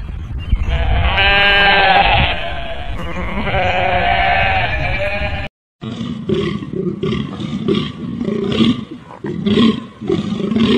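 A goat bleating twice in long calls, then, after a brief break, a bull elk making a rapid series of short grunts.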